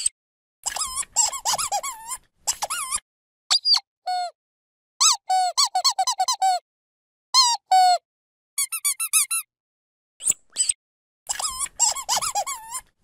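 Dog squeaky toy squeezed over and over in quick bursts of squeaks, each squeak wavering up and down in pitch, with short silent pauses between the bursts.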